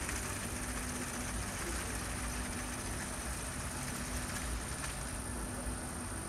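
Eurocopter EC135 helicopter's turbines idling on the pad: a steady, unchanging run with a constant low hum and a thin high whine.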